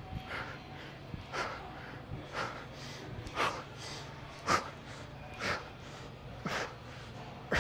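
A man breathing hard and forcefully in rhythm with weighted reps, one sharp breath about every second.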